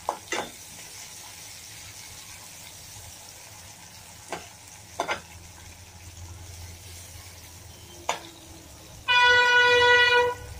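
Sliced onions and panch phoron sizzling in mustard oil in a steel kadhai, stirred with a metal spoon that clicks and scrapes against the pan a few times. Near the end a loud, steady horn-like tone sounds for about a second.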